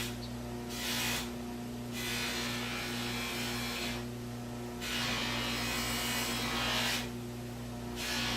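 Cloth rubbing polish into a pocket watch's metal case back by hand, in stretches of one to two seconds with short pauses, over a steady electrical hum.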